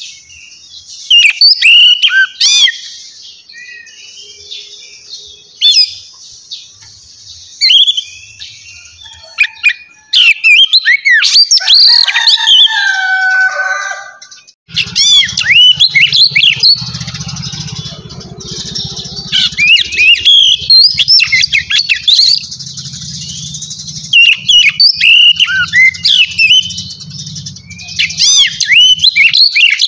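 Birds chirping and chattering loudly, in quick bursts of short high notes. About halfway through, a low hum starts under them.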